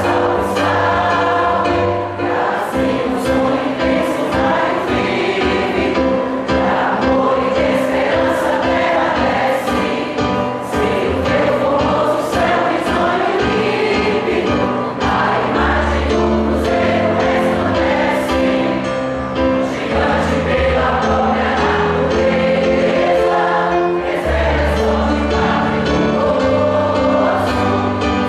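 Mixed choir of men and women singing in harmony, with long held chords.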